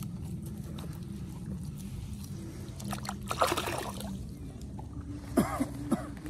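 Water sloshing and splashing in shallow water as fish are grabbed by hand, with a louder splash about three and a half seconds in and two more near the end, over a steady low hum.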